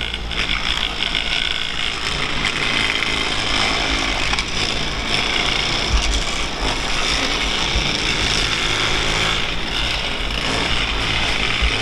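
Powered railway track-maintenance tools running steadily, a continuous mechanical din with a few low knocks.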